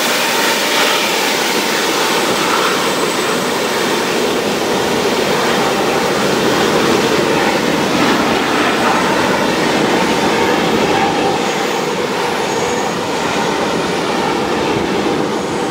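Freight train of covered hoppers rolling away along the track, its rear distributed-power locomotive (CN SD70M-2) going by last: a steady, loud rumble and rush of steel wheels on rail.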